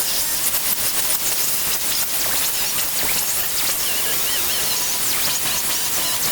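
Power tool cutting through rusted steel seat-track bolts: a steady, harsh hiss with a high whine that wavers in pitch as the cut loads it.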